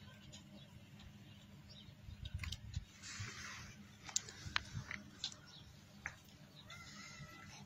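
Porcupines scuffling with quills raised: a rustling rattle of quills and several sharp clicks, with a brief high pitched call near the end.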